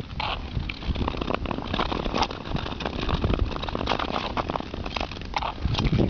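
Speed-skate blades scraping and clattering over rough, scratched natural ice in uneven strokes, over a steady rumble of wind on the microphone.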